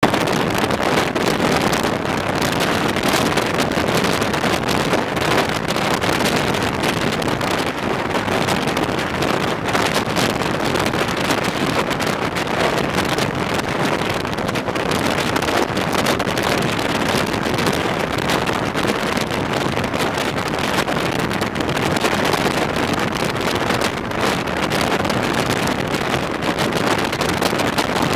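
Loud, steady rush of wind through the open window of a moving non-air-conditioned passenger coach, buffeting the microphone, over the train's running noise.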